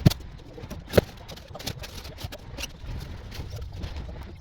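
Irregular knocks and clicks of hands-on work, two sharper knocks about a second apart near the start, over a low background rumble.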